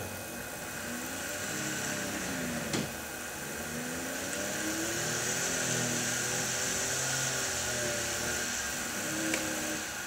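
Small reed-switch-timed magnet pulse motor (Mini Window motor) running with a whir whose pitch slowly rises and falls as its speed changes while the reed switch is moved by hand to find the right timing position. Two light clicks, about three seconds in and near the end.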